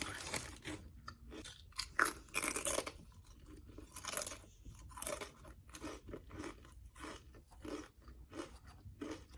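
Close-miked mouth sounds of someone eating: crunching and chewing, with louder crunches about two and four seconds in, then steady chewing at about two chews a second.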